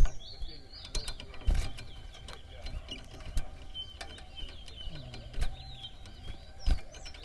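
Caged towa-towa finches singing short, high, sliding whistled notes throughout, over many sharp clicks and knocks.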